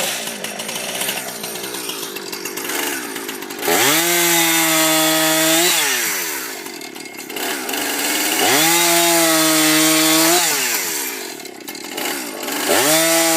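Two-stroke chainsaw revved to full throttle three times, each burst rising to a high, steady engine note for about two seconds and then dropping back to a lower, rougher running sound between the bursts.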